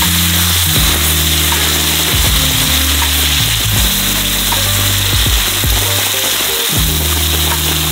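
Marinated meat sizzling steadily in a steel frying pan over a wood fire, over background music with held low notes.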